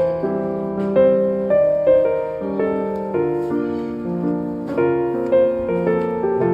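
Gentle piano background music, a melody with chords changing every half second or so.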